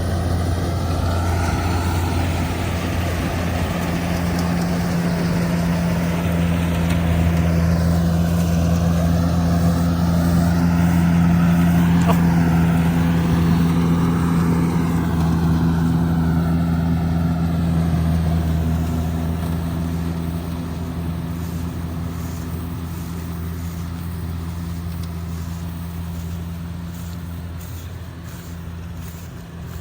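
Kubota DC70G Plus combine harvester running with a steady diesel drone. It grows louder toward the middle and then slowly fades, as if passing by.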